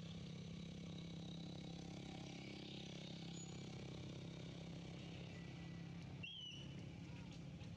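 Steady low hum of a distant engine, with a single short high chirp about six seconds in.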